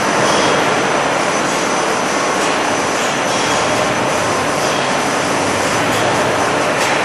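Steady, loud machine noise of a cathode ray tube production line: conveyors and automated handling equipment running, with a faint thin high whine over the top.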